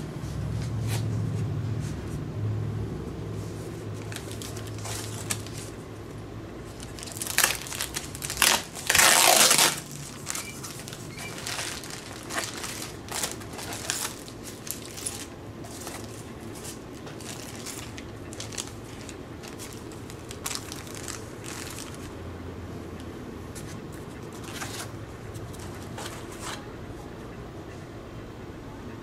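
Packaging being handled: the plastic film around a foam packing insert crinkles loudly in a few rushes about seven to ten seconds in, followed by scattered lighter rustling and small knocks of foam and cardboard.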